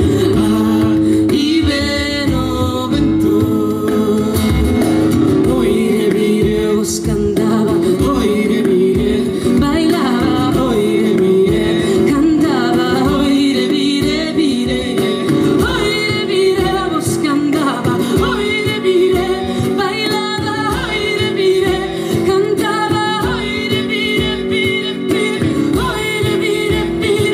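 Live acoustic folk song: a woman's voice singing over a strummed acoustic guitar, with a hand-played frame drum keeping a steady beat.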